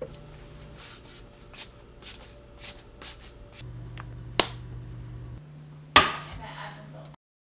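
Kitchen handling sounds: a run of light clicks and knocks, then a sharp click about four seconds in as a stove control knob is turned. Near the end comes the loudest sound, a metal frying pan set down hard on a glass-top electric cooktop with a short ring. The sound cuts off abruptly just before the end.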